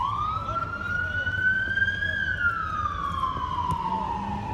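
Emergency vehicle siren sounding a slow wail: its pitch rises for about two seconds, then falls slowly for the rest.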